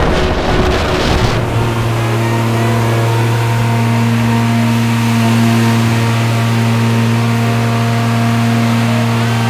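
An engine running steadily at constant speed, a loud, even, low hum that sets in about a second and a half in, after a brief rush of wind noise.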